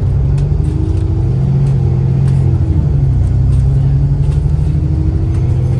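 Alexander Dennis Enviro 400 MMC double-decker bus running under way: the diesel engine drones steadily while a fainter whine from the drivetrain slowly rises in pitch, with a few light clicks and rattles.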